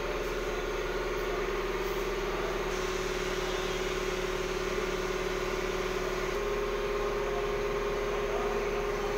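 Steady mechanical hum with a constant pitch over a noisy background; the pitch steps slightly higher about six seconds in.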